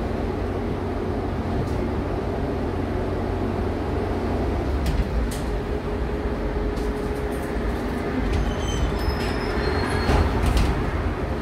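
Konstal 805Na tram in motion, heard from inside the passenger car: a steady rumble of the wheels on the rails with a steady hum, and a few clicks and rattles through the second half.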